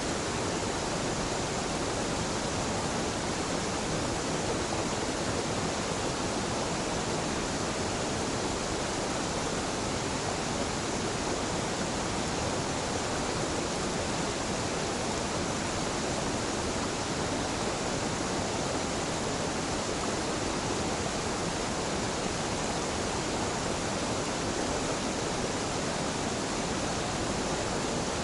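A gentle mountain waterfall rushing steadily, a continuous even sound of falling and splashing water with no breaks.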